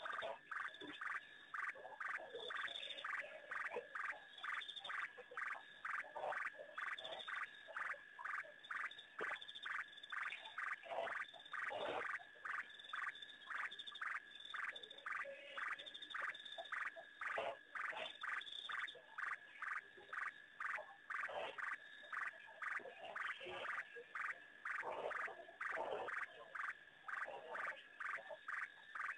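A chorus of frogs calling: an unbroken, even train of short calls, two or three a second, with other lower, sliding calls mixed in at times.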